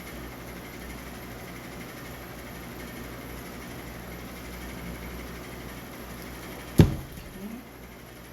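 Steady low background hum with one sharp knock near the end, a short handling sound on the workbench.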